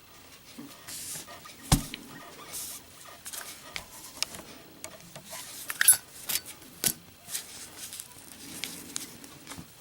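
A brass Zippo lighter being handled: scattered small clicks and knocks of metal, the sharpest about two seconds in and a cluster of them about six to seven seconds in.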